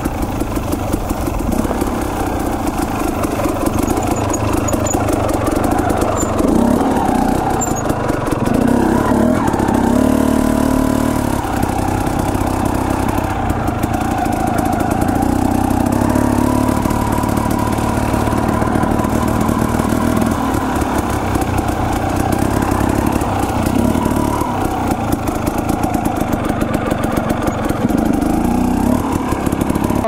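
Dirt bike engine running while the bike is ridden at low speed. The revs stay fairly steady, with small rises and falls as the throttle is worked.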